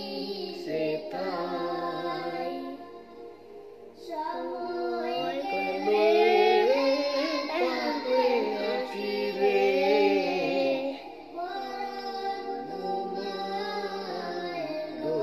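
A young boy singing a Bengali Islamic gojol, a devotional song, in long held notes that glide up and down in pitch. There is a brief breath or pause about three seconds in.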